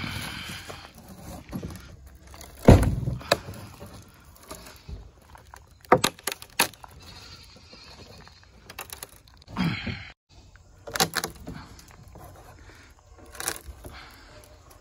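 Steel crowbar prying weathered plywood deck boards up off a steel utility-trailer frame: a series of sharp knocks, the loudest about three seconds in, with creaking as the boards lift and the rusted screws pull up with the wood.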